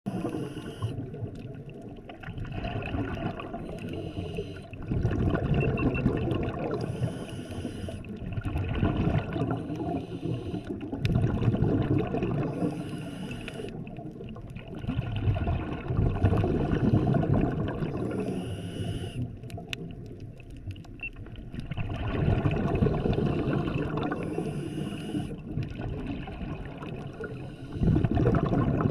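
Scuba diver's breathing picked up underwater: regulator breaths with exhaled bubbles rushing out, rising and falling about every five or six seconds.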